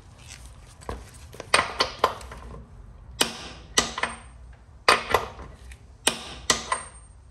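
Wrench on a motorcycle's rear axle nut giving sharp metallic clicks in groups of two or three, about ten in all, as the nut is pulled further past its torque to line its slot up with the cotter pin hole.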